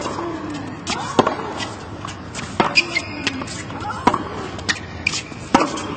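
Tennis rally: racket strikes on the ball about every one and a half seconds, alternating between the two players, five in all. A short voiced grunt follows some strikes, over a low crowd murmur.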